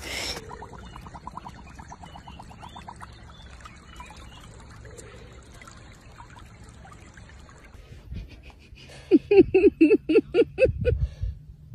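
Water trickling and running in a shallow stream. Near the end comes a quick run of about nine short, loud pitched sounds, about five a second, which are the loudest sounds here.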